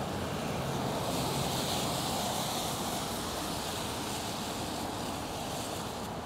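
Steady rushing noise of riding a bicycle on rain-wet streets: wind on the microphone and tyres hissing on wet pavement, swelling a little a second or two in.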